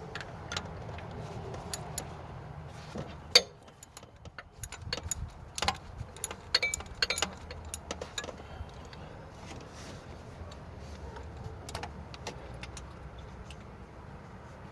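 Irregular metallic clinks and clicks of a hand wrench and socket working on a water pump's 13 mm bolts, with one sharp clack about three and a half seconds in and a flurry of clinks in the middle.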